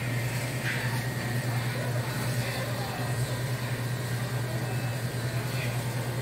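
Steady low hum of supermarket refrigeration and ventilation equipment, unchanging throughout, with faint store sounds over it.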